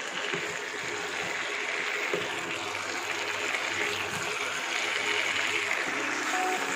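Small whole potatoes sizzling in hot oil and spice paste in a non-stick pan as a spatula stirs them: a steady hiss of frying.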